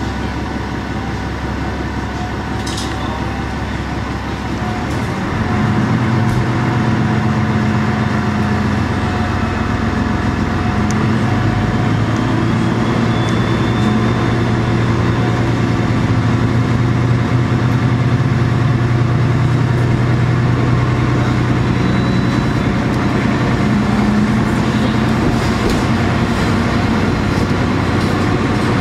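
KiHa 47 diesel railcar's engine idling, then opening up about five seconds in as the car pulls away. The engine then runs under power at a steady pitch.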